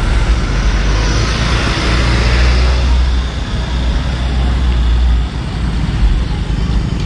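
Road traffic passing close by: car and motorcycle engines and tyre noise over a steady low rumble.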